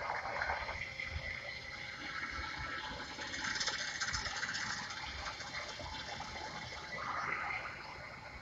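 Film sound design: a rushing, whooshing noise with no clear pitch that swells and fades three times, near the start, around the middle and near the end.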